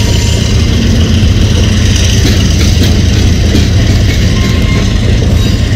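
Covered hopper cars of a freight train rolling past, their steel wheels making a loud, steady rumble on the rails.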